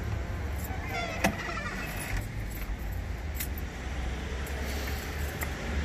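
A door swinging shut, with a sharp latch click about a second in, over a steady low rumble.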